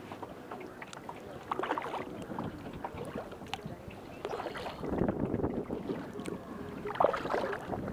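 A double-bladed paddle dipping and pulling through lake water in strokes on alternate sides of a Delta 10 kayak, with splashing and dripping from the blades. The strongest strokes come about five and seven seconds in.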